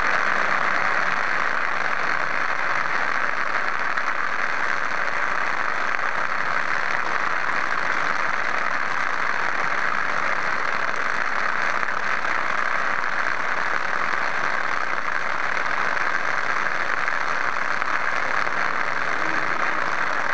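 Small lava pieces jumping and rattling on the cone of a small loudspeaker that is playing recordings of volcanic activity, making a steady, dense, rain-like patter.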